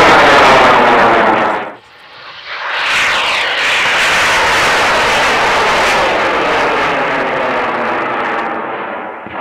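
High-power rocket motor burning in flight, a loud, rough rushing noise. It cuts out suddenly about two seconds in, comes back about a second later and fades slowly as the rocket climbs away, and a short sharp crack ends it.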